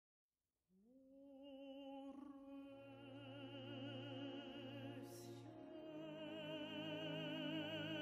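Slow classical background music fading in less than a second in: long held notes with a wavering vibrato over sustained low notes.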